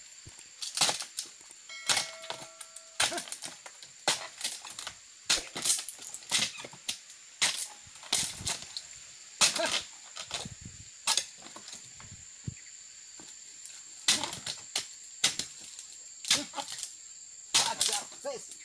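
Oil palm frond bases being chopped with a long-handled pruning chisel (dodos): irregular sharp chopping strikes, about one or two a second, with a pause of a few seconds around the middle.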